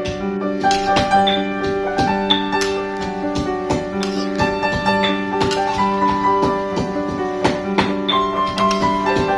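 Background music led by piano, with held notes in changing chords.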